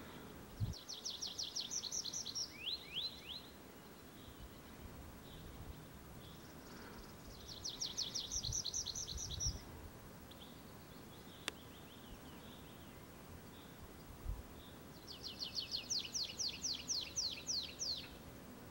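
Tree pipit singing from a perch: three song phrases, each a fast trill of repeated high notes. The first phrase ends in a few slurred, falling notes.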